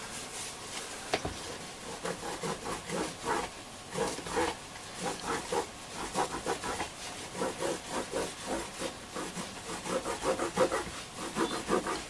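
Soft cloth polishing the case of a Hacker Mini Herald transistor radio: quick, irregular rubbing strokes one after another.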